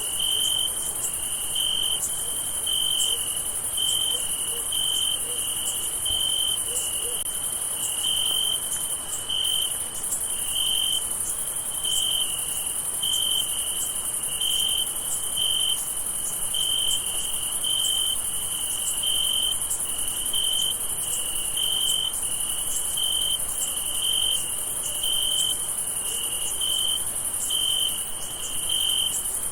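Night-time crickets chirping: a steady high-pitched trill with a lower, evenly pulsed chirp repeating about twice a second.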